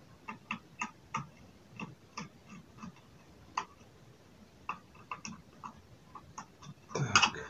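Small irregular clicks and taps of a circuit board and plastic laptop chassis parts being handled and seated, with a louder clatter near the end.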